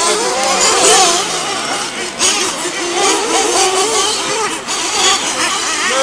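Several RC racing truggies' small engines revving up and down at once, their overlapping pitches rising and falling constantly as the trucks race around the track.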